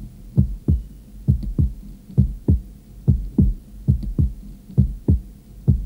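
Heartbeat sound effect: a steady lub-dub of paired low thumps, about one pair a second.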